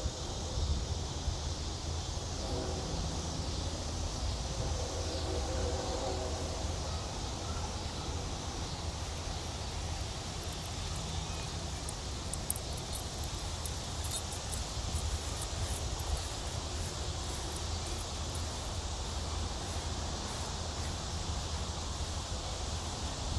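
Outdoor ambience with a steady low rumble of wind on the microphone. A faint, pitched sound comes and goes in the first few seconds, and a run of sharp, high clicks comes near the middle.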